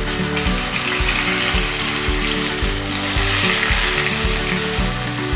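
Wet onion, ginger and garlic paste sizzling as it fries in hot oil in a pan and is stirred with a wooden spatula, over soft background music with a steady beat.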